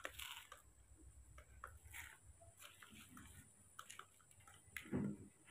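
Faint clicks and scrapes of a spoon stirring porridge in a small plastic cup, with a short, louder voice-like sound about five seconds in.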